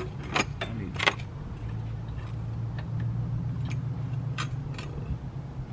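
A few scattered metal clicks and taps of hand tools working on an ATV's bolts, over a steady low hum.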